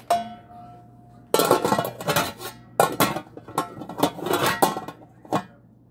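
Kitchen cookware clattering. A light knock rings briefly near the start, then about four seconds of repeated clanks and scrapes as a speckled black enamel roasting pan and its lid are handled, with utensils clinking.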